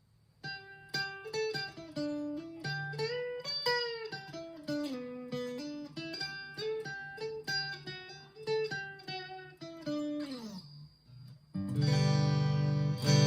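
Electric guitar on its neck pickup with a clean tone: a run of single picked notes moving up and down in pitch, then a louder strummed chord that rings on from about eleven and a half seconds in.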